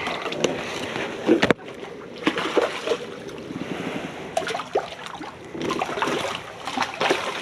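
Water splashing with irregular handling knocks as a hooked black drum is brought in, with one sharp knock about a second and a half in.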